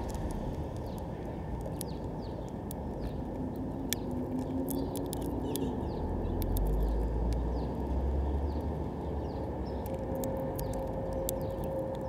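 Male house finch shelling sunflower seeds on a platform feeder: a scatter of sharp little clicks and cracks. Under them runs a steady low rumble that swells for a couple of seconds midway.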